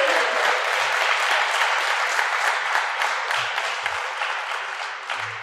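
Audience applause: many hands clapping, steady at first and dying down near the end.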